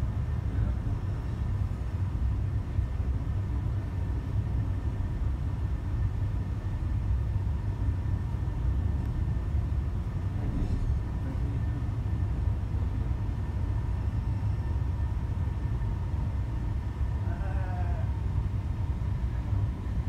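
Steady low engine rumble on a ferry's vehicle deck as diesel coaches drive aboard, with a faint steady hum above it. Brief distant voices come in near the end.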